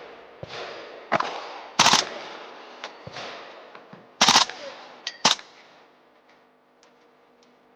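Gunfire on a shooting range: several single shots and two short rapid bursts, each followed by a long rolling echo, then fading to faint distant pops over the last couple of seconds.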